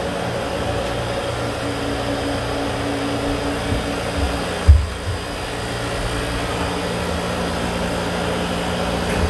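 Steady hum of running machinery in a yacht's engine room, with a few steady tones in it. One dull thump about halfway through.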